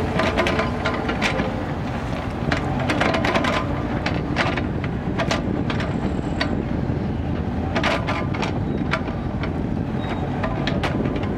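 Kubota mini excavator's diesel engine running steadily under load while it digs, with irregular clanks and scrapes as the bucket works the soil.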